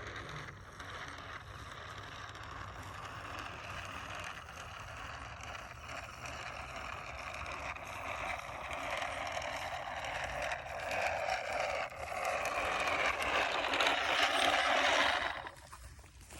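A handheld seeder broadcasting clover seed while being walked across the plot: a steady rustling hiss that grows louder and cuts off suddenly near the end.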